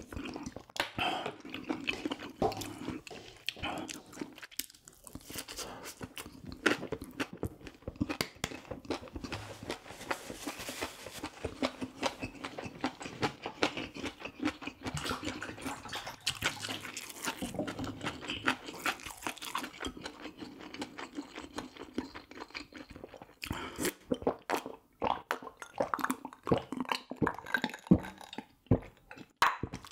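A person chewing and crunching food close to the microphone, a dense run of small crisp crunches and clicks.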